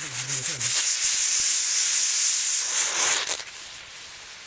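Loud, steady sizzling hiss from food in a hot cooking pan, cutting off sharply about three and a half seconds in.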